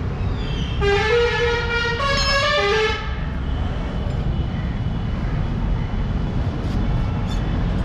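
A vehicle horn sounds for about two seconds, holding steady tones that step up in pitch partway through. Under it runs a steady low rumble of street traffic.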